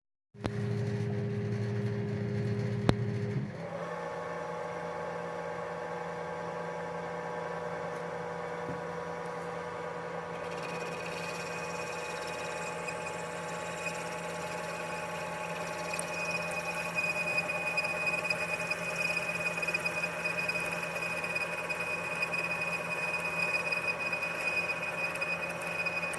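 Machine tool running with a steady whine of several held tones. The pitch pattern shifts abruptly about three and a half seconds in, and a higher whistling tone joins about ten seconds in.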